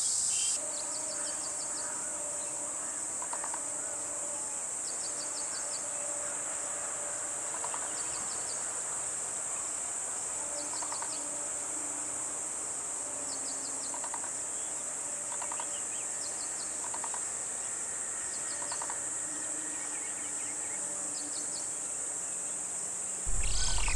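Steady high-pitched insect drone with short cricket-like chirps, each a quick run of about five pulses, repeating every second or two, and fainter trills lower down. Near the end it gives way suddenly to a louder, fuller sound.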